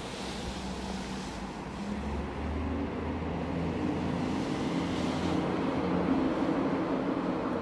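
A motor vehicle's engine running, its low hum rising a little in pitch and growing gradually louder over a steady hiss of street noise.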